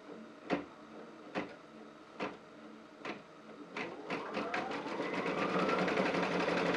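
Brother Stellaire embroidery machine starting to stitch again after a bobbin change: a few slow needle strokes about a second apart, then speeding up into a steady fast stitching run with a rising motor whine.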